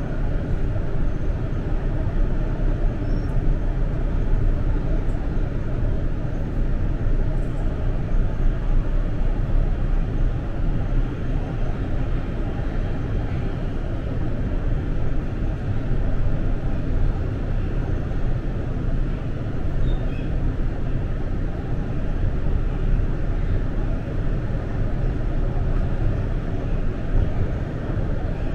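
Subway train running between stations, heard from inside the passenger car: a steady low rumble of wheels on rails and running gear, with no change in pace.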